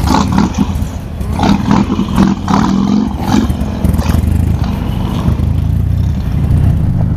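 Buell motorcycle engine running as the bike pulls away and rides off, a steady low engine note with irregular bursts of noise in the first few seconds.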